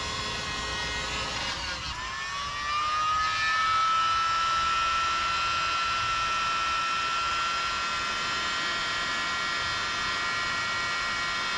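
Small battery-powered air mattress inflator running, blowing air into an airbed through its valve. Its motor whine rises in pitch and gets a little louder about two seconds in, then runs steady.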